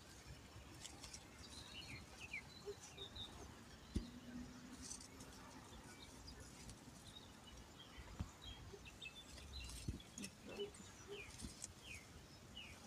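Faint outdoor ambience with scattered short bird chirps. Small soft rustles and knocks come from hands pulling seedlings out of the soil, one sharper knock about four seconds in.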